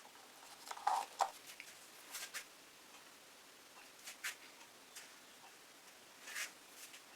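Faint, scattered small taps and short scrapes, a few seconds apart, from painting tools and paint containers being handled and set down on the work table.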